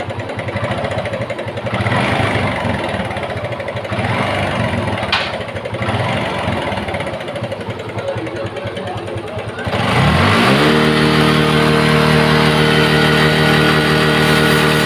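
Suzuki Gixxer single-cylinder motorcycle engine running rough, then revved up about ten seconds in and held at a steady high speed. The harsh, damaged-sounding engine noise is the fault being shown, on a bike that also blows white smoke from its silencer.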